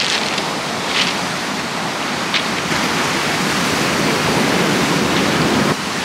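Heavy sea surf breaking and washing on the beach: a steady rushing with brief hissing surges, as the swell runs big with the incoming tide.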